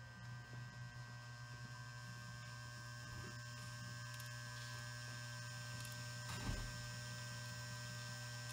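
Kirby Lester KL50 tablet counter powered on and standing idle, giving a steady electrical hum with faint high whining tones. One short knock about two-thirds of the way through.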